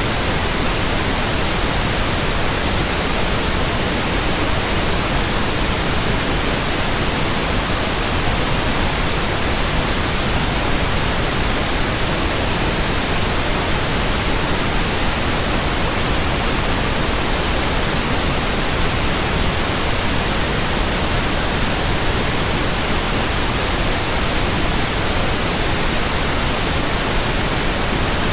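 Steady white noise: an even, unchanging hiss spread across all pitches, with no pulses, beats or tones in it.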